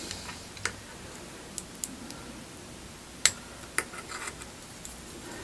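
A handful of small, sharp metallic clicks from fine tweezers tapping and catching against an opened iPhone's frame and battery while the battery's adhesive pull tabs are worked. The clicks are scattered and irregular, with the loudest about three seconds in.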